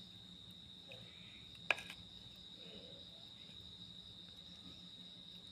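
Faint steady high-pitched trill of a cricket, with a single sharp click about a second and a half in.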